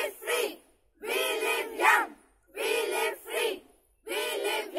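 A group of girls shouting a short two-part slogan in unison, four times at an even pace. Each time a longer shout is followed by a short one.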